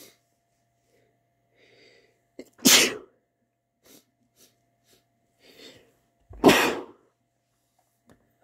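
A person sneezing twice, the sneezes about four seconds apart, each led by a quieter breath in.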